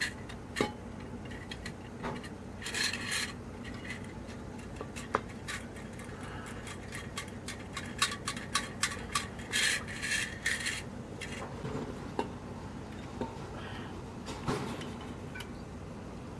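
Clicks, clinks and rubbing of metal fittings as gloved hands work the pump and fuel-line connection of a pressurised MSR stove fuel bottle. Two brief rushing noises come about three seconds in and again about ten seconds in.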